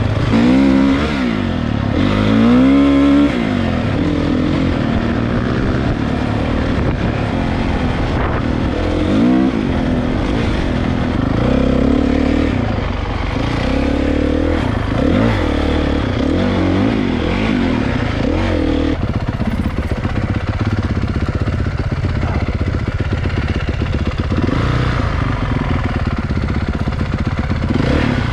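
Dirt bike engines revving up and down while riding off-road trails, the pitch rising and falling repeatedly as the throttle opens and closes and the gears change.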